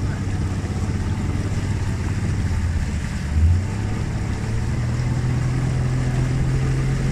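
Speedboat's outboard motor running under way, a steady low drone over the rush of wind and water. There is a brief louder surge about halfway, and the engine note then rises to a higher pitch.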